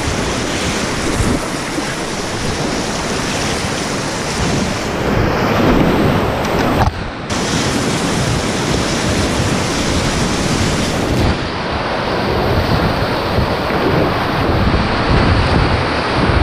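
Loud rushing of whitewater rapids around a kayak running down a river, mixed with splashing from paddle strokes. The sound cuts out for a split second about seven seconds in.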